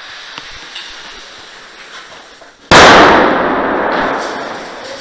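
A single very loud bang about two-thirds of the way in, like an airsoft pyrotechnic grenade going off at close range, followed by a noisy tail that fades over about two seconds.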